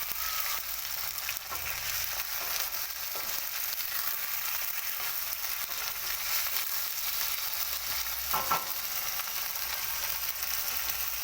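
Chicken frying in hot oil in a kadhai, a steady sizzle with small scattered crackles. There is one brief louder clatter, as of a spoon against the pan, about eight and a half seconds in.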